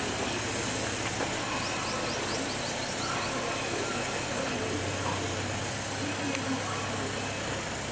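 Steady hiss of disinfectant spraying from hose nozzles over the low hum of a motor-driven sprayer pump, with faint voices.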